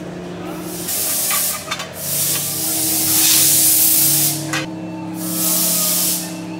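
Three loud bursts of compressed air hissing, the middle one the longest at about two seconds, over a steady low hum.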